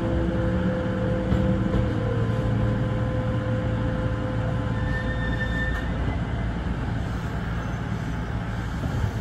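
Kintetsu local electric train moving off from a station, heard from the driver's cab: a faint whine from the drive motors fades out over the first few seconds, leaving a steady rumble of the wheels running on the track.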